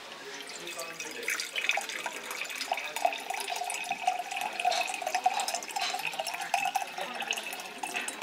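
Water poured steadily from a glass bottle into a glass tumbler, a continuous splashing trickle.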